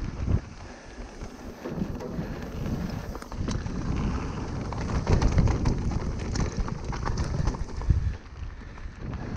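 Wind buffeting the microphone over a mountain bike's tyres running on loose slate gravel during a fast descent, with scattered sharp clicks and rattles from stones and the bike.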